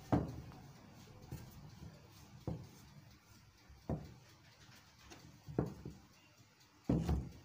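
Wooden rolling pin knocking on a wooden cutting board while dough is rolled out: a handful of short knocks a second or two apart, the loudest a quick double knock near the end.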